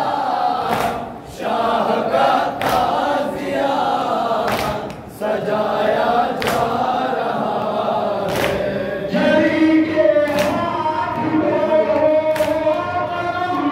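Shia mourners chanting a noha in chorus, with a sharp unison chest-beating slap (matam) about every two seconds keeping the beat. The singing grows louder and clearer about nine seconds in.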